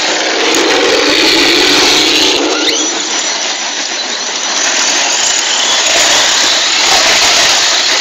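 Brushless-motored Tamiya TXT-2 RC monster truck spinning donuts on loose gravel: the stones hiss and spray under its spinning tyres over a brief rising motor whine, the noise swelling and easing twice.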